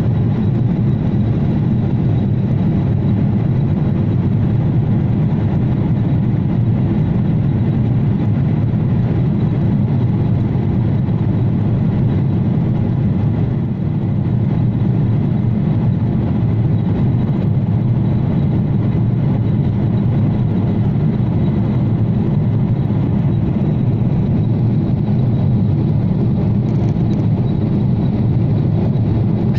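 Airliner cabin noise during the climb after takeoff: a steady low rumble of the jet engines and rushing air, with a faint steady high whine over it. It dips briefly about fourteen seconds in.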